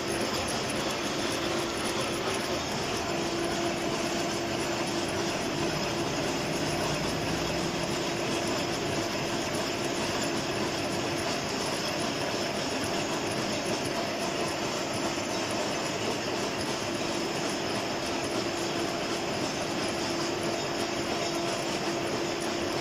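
Gear hobbing machine running and cutting teeth into a worm wheel: a steady, unchanging machine noise with a constant low tone.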